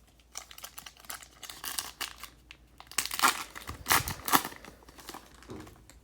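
A Donruss Optic football card pack's wrapper being torn open and crinkled, the crackling loudest a few seconds in.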